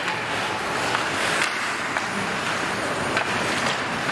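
Ice hockey rink ambience: a steady scraping wash of skate blades on the ice and arena noise, with a few sharp clicks.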